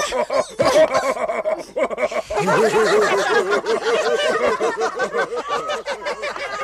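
Several cartoon characters laughing together in a mocking chorus of rapid, repeated 'ha-ha' sounds, growing denser about two seconds in.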